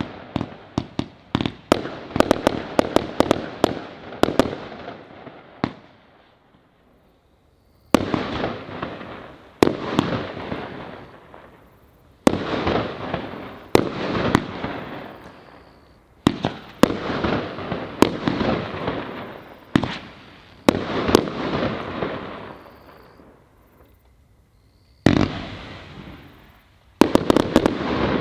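A Nordlicht Feuerwerk 'Die Hand Gottes' 239-shot 1.3G compound fireworks cake firing: quick volleys of sharp shots and bursts, each volley fading into a dense patter of small pops. Twice the firing pauses and goes almost quiet for about two seconds, then starts again with a bang.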